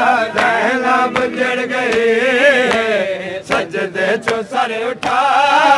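A crowd of men chanting a Punjabi noha refrain in unison, accompanied by sharp slaps of hands beating on bare chests (matam), several in quick succession in the second half.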